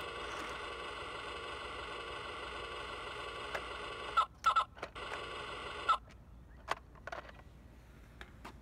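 Electronic sound module of a 1:6 radio-controlled Mini Cooper playing a steady buzzing tone, with a few quick high beeps about four seconds in. The sound cuts off suddenly about six seconds in, leaving only faint scattered clicks.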